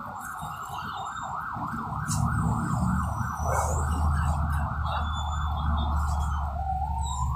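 A siren warbling quickly, several times a second, then switching to a slow rising-and-falling wail near the end. Under it, the low rumble of the crane truck's engine grows louder about two seconds in as the crane holds the lifted steel stall.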